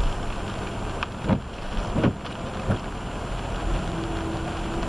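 A car driving through heavy rain on a flooded road: steady rain and water noise, with a few sudden thumps about one and two seconds in.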